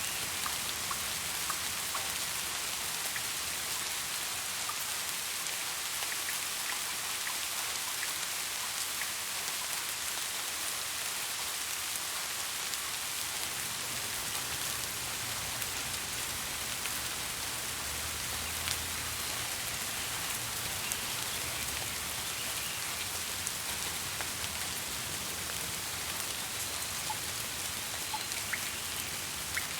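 Steady rain falling, with scattered separate drop ticks over an even hiss. A faint low rumble comes in partway through and fades later.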